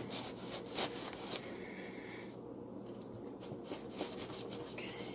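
A spatula stirring thick banana bread batter in a metal baking pan: faint, irregular scrapes and soft squishes.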